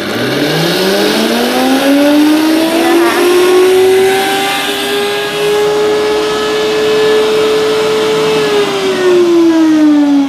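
Commercial high-speed smoothie blender running behind its closed sound-enclosure cover. The motor spins up with a rising whine over the first few seconds, runs at a steady high pitch, then winds down about eight seconds in.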